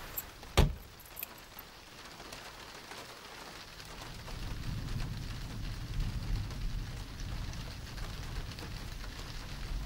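A car door slams shut about half a second in, then heavy rain beats on the car's roof and windshield, heard from inside the cabin. A low rumble joins from about four seconds in.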